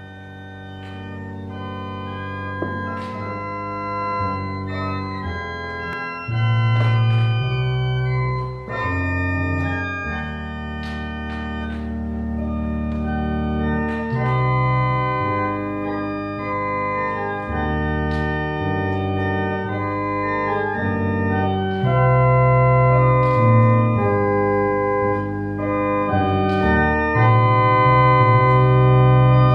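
Church organ playing a hymn in held, sustained chords over a moving bass line, growing gradually louder.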